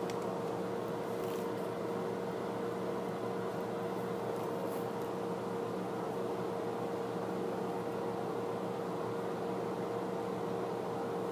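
A steady machine hum with a constant mid-pitched tone over an even hiss, unchanging throughout.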